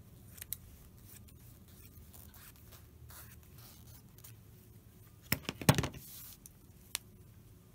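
Scissors cutting metallic lamé fabric and the fabric being handled. Quiet snips and rustles, with a short cluster of sharp clicks a little past the middle.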